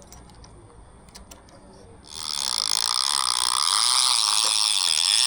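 Fishing reel's drag buzzing as a hooked fish pulls line off the spool, starting suddenly about two seconds in and running steadily to the end, after a few light clicks.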